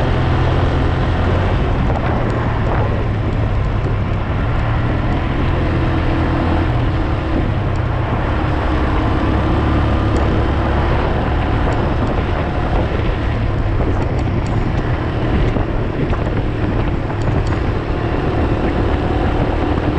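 Small motorcycle engine running steadily under way, heard from the rider's seat, with wind rushing over the microphone.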